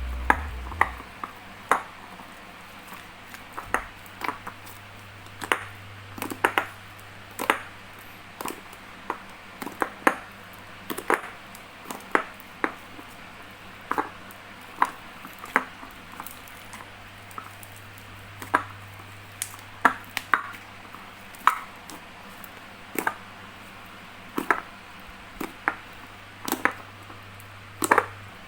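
Clear dish-soap and glue slime being squished and worked, giving short sharp sticky clicks and pops about once or twice a second, over a low steady hum.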